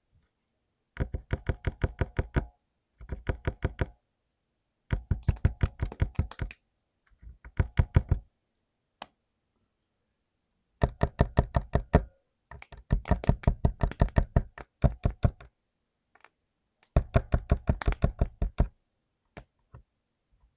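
Typing on a mechanical keyboard with lubed switches: rapid keystrokes, about eight a second, in bursts of one to two seconds with short pauses between them.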